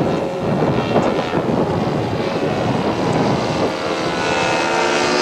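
Radio-controlled scale model airplane engine running, a steady noisy drone, with a clearer engine tone coming in over the last second or so.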